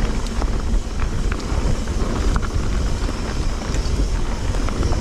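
Mountain bike riding over a dirt trail: a steady rumble of tyres on the ground and wind buffeting the microphone, with scattered clicks and rattles throughout.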